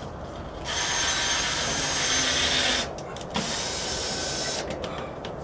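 Power drill driving drywall screws up into a sheetrock ceiling patch, running in two stretches of about two seconds each with a short pause between.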